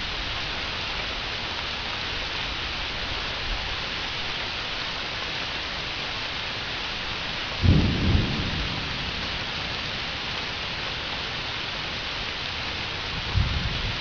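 Thunderstorm: steady rain hiss, with a sudden low rumble of thunder about halfway through and a shorter, weaker one near the end.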